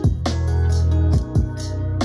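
Electronic music with a deep, sustained bass line and punchy kick drums, played through a Marshall home Bluetooth speaker for a sound test.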